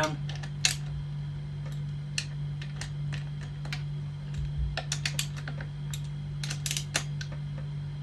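Small ratchet wrench clicking in short, irregular strokes as bolts are tightened down, with a steady low hum underneath.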